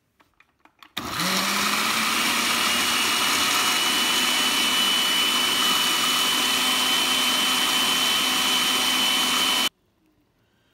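Countertop blender puréeing softened dried red chiles with onion, garlic and water into a red chili sauce. The motor starts about a second in, its pitch rising as it spins up, runs steadily with a high whine, then cuts off suddenly near the end.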